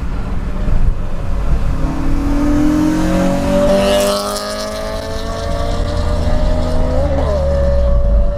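Modified Honda Civic accelerating hard, its engine note rising steadily in pitch for several seconds, wavering briefly, then holding steady.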